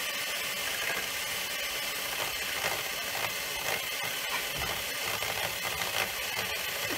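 Geared electric motor spinning a razor-bladed cutting disc made from an old angle-grinder disc, with a carrot pressed against it: a steady motor hum and whir with a rapid, irregular stream of small ticks and clicks as the blades chop into the carrot.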